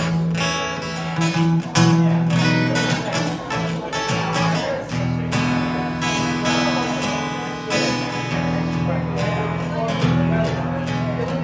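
Acoustic guitar music, strummed and picked, playing an instrumental passage without singing.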